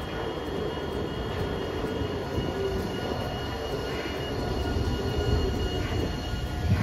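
Hiroden 3900-series articulated tram running past close by on street track, its wheels rumbling steadily on the rails with a thin steady whine above. A loud low thud comes right at the end.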